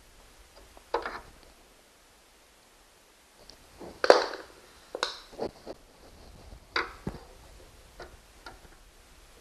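Scattered clicks and knocks of a screwdriver and metal parts being handled while working at tight screws on a treadmill frame. The loudest knock comes about four seconds in, with a cluster of smaller ones after it.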